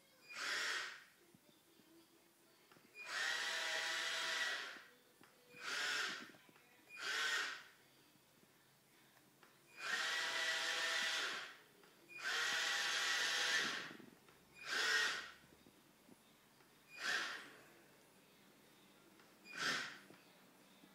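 Small electric gear motors of a homemade Arduino-controlled, Wi-Fi-driven robot tank whirring in about nine separate bursts, some short and a few lasting a second or two, as it is driven in starts and stops.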